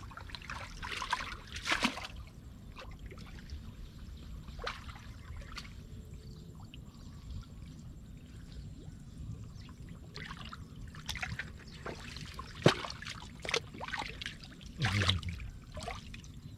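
Water splashing and trickling in irregular bursts, over a steady low rumble; a single sharp smack about three-quarters of the way through is the loudest sound.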